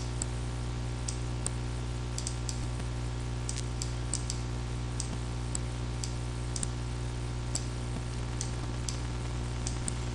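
Computer mouse buttons clicking irregularly, about twenty sharp clicks, over a steady low electrical hum.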